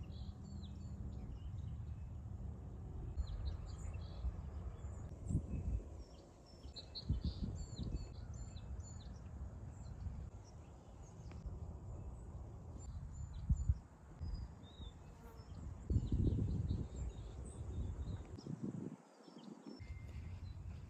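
Outdoor ambience: wind buffeting the microphone in gusts, with scattered short bird chirps and a bee buzzing briefly at the start.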